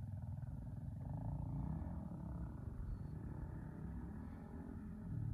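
Distant engine running: a steady, rough low drone with a faint, buzzy upper tone that swells about a second in.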